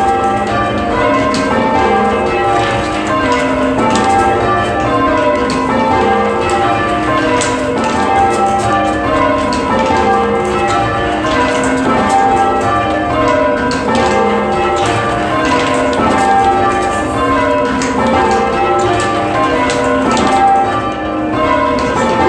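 Church bells rung full-circle in English change ringing. The strikes come steadily one after another, each row stepping down in pitch from the highest bell to the lowest, and the rows repeat one after another.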